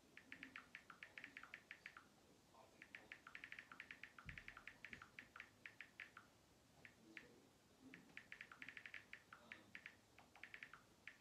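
Faint phone keyboard clicks from typing a text message: quick runs of several taps a second, broken by short pauses. A single low thump comes about four seconds in.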